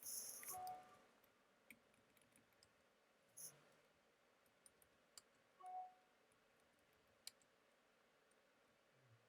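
Near silence broken by a few faint keyboard clicks: a short flurry of keystrokes at the start, then single clicks a couple of seconds apart.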